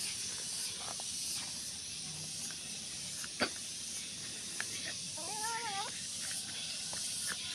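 A cat meows once, a short rising-then-falling call about five seconds in, over a steady high hiss. There is a sharp click about three and a half seconds in.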